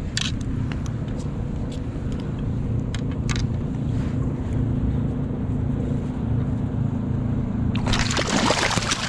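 A steady low hum, like a motor running, with a loud rushing noise over the last second that cuts off suddenly.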